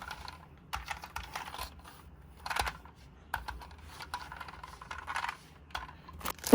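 Irregular light clicks, taps and rustles of small plastic toy pieces and packaging being handled.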